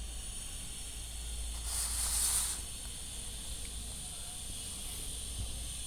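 Steady low machine hum, with a short burst of hiss about two seconds in.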